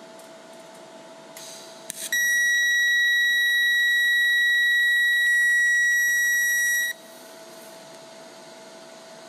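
TIG welding arc on stainless steel from a Lincoln Electric Aspect 230 in pulsed DC mode, its pulse frequency at the maximum of 2000 Hz. The arc gives a loud, steady, piercing high-pitched whine at the pulse rate, starting about two seconds in and cutting off suddenly after about five seconds.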